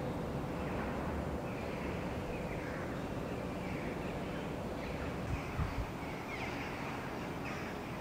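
Street ambience: a steady low rumble of distant traffic with birds calling every second or so, and a couple of low thumps about five and a half seconds in.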